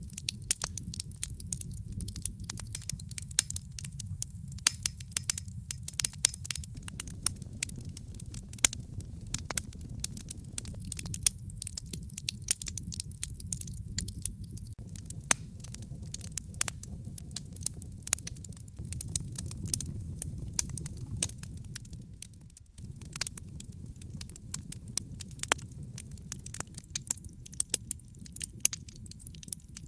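Wood fire burning in a fireplace: logs crackling with frequent irregular sharp pops and snaps over a low, steady rumble of flame.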